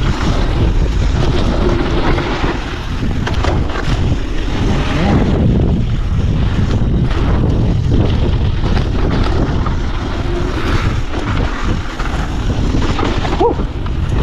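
Wind rushing over the microphone of a mountain bike speeding down a dirt trail, over the tyres rolling on dirt and the bike rattling over bumps.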